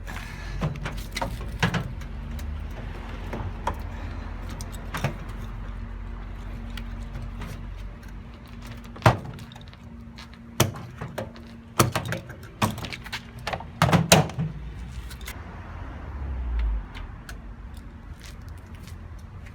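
Clunks, clicks and rattles of hands working at a front-loading washing machine's door and drum, over a low steady hum; the loudest knocks come about nine, twelve and fourteen seconds in.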